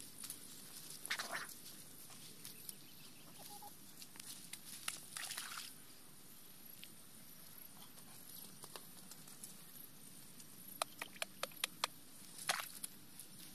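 Bare feet walking and brushing through dry grass and stubble: a few short rustling bursts, then a quick run of sharp snaps or clicks near the end.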